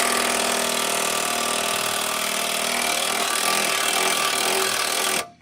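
A power tool running at a steady speed, a loud hissing whine with a steady hum under it, which cuts off suddenly near the end.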